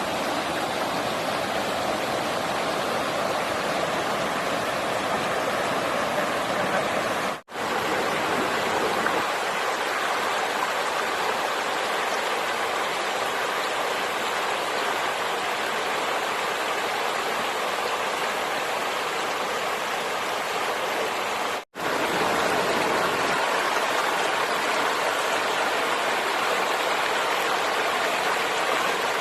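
Steady rushing of flowing water, cut off briefly twice.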